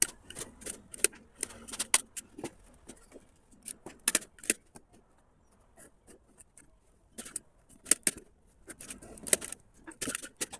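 Irregular sharp clicks and light knocks, with a quieter stretch in the middle.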